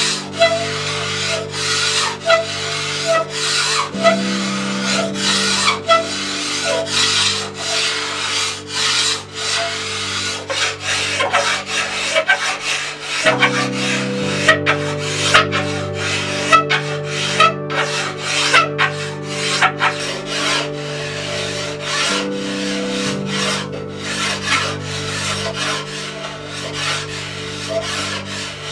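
Rasp worked by hand over osage orange bow wood in repeated strokes, about two a second. Background music with sustained chords plays underneath.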